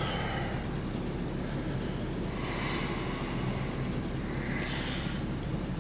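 Motorhome's basement central air conditioner running: a steady rush of air with a low hum underneath.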